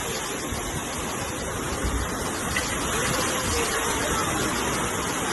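Heavy rain pouring down in strong wind, a loud, steady rushing noise.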